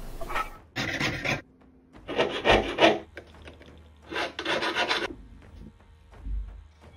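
Hand file rasping on a small metal axe pendant: three separate bursts of back-and-forth filing strokes, about a second each, with short pauses between. A soft low bump near the end.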